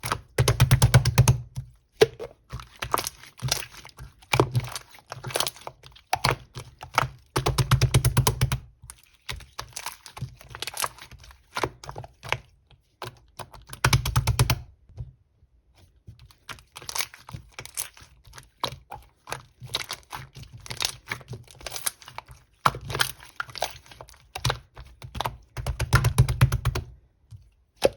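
Clear slime being squeezed and poked by hand, giving off rapid crackling clicks in bursts, with several louder squishing spells.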